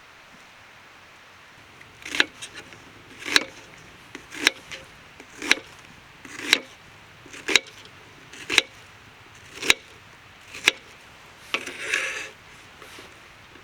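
Chopping on wood: about nine sharp knocks roughly a second apart, then a short scraping rustle near the end.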